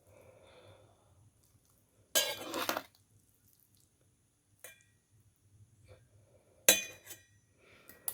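Utensil clinking and scraping against a bowl as instant fried noodles are stirred into their thick seasoning paste: a scrape about two seconds in, a light clink near the middle, and another clink and scrape near the end.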